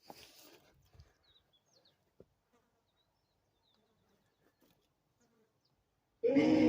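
Near silence with a few faint ticks, then about six seconds in a loud, buzzing, droning piece of music with steady held tones starts abruptly.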